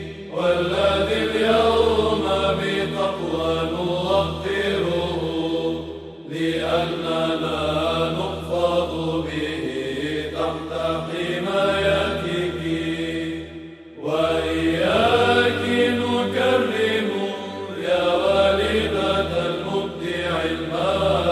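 Byzantine chant in Arabic, Tone 4 Aposticha hymns: a voice sings a winding, melismatic melody over a steady held low drone (the ison), with brief pauses for breath about six and fourteen seconds in.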